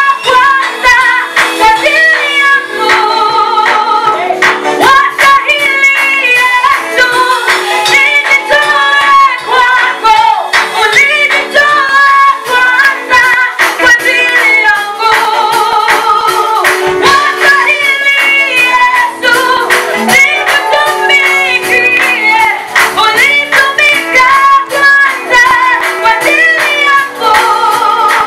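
Gospel praise song sung by a vocal group, with women's voices prominent and a steady rhythmic beat.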